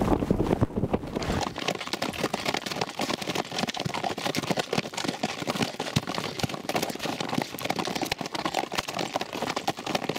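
Horses walking on river ice, their hooves making a dense, uneven run of clicking strikes. Wind rumbles on the microphone for about the first second and a half.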